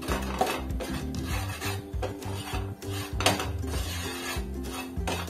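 Wooden spatula scraping and stirring semolina roasting in ghee across a non-stick frying pan, in repeated, irregular strokes. Soft background music plays underneath.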